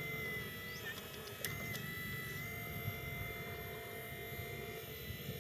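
Radio-controlled model excavator's motors whining steadily while its bucket tips soil into a model dump truck, with two short clicks about a second and a half in.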